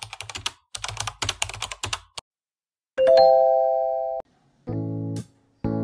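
Intro sound effects: a fast run of keyboard-typing clicks lasting about two seconds, then after a short pause a bright chime that rings for about a second and cuts off. A short chord follows, and music chords begin near the end.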